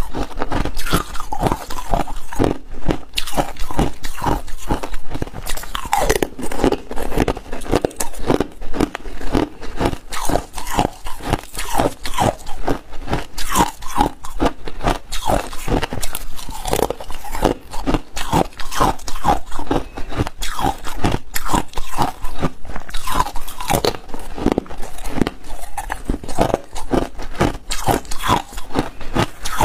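Ice being bitten and chewed close to a lapel microphone: chunks of frosty, packed ice crunched between the teeth in a dense run of sharp crunches, several a second.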